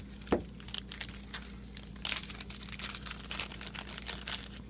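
Plastic zip-lock bags of game components crinkling as they are handled and opened, in irregular crackly rustles that thicken about halfway through. A light knock comes shortly after the start.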